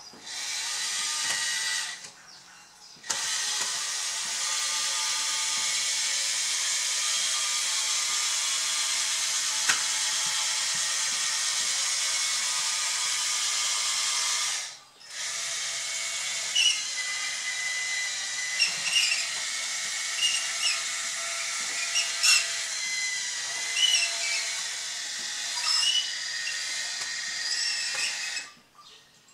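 Electric drive motors and gearboxes of an RC-converted Bruder CAT D11 toy bulldozer running as it drives on its tracks and pushes sand. The motors stop briefly about two seconds in and again around halfway, and in the second half short clicks mix in with the running sound.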